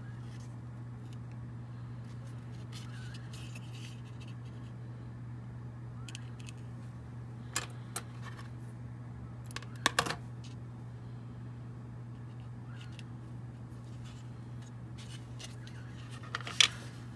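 Hands handling a small model lumber load while pressing thin striping tape onto it: faint rustles and a few sharp clicks and taps, the loudest near the end, over a steady low hum.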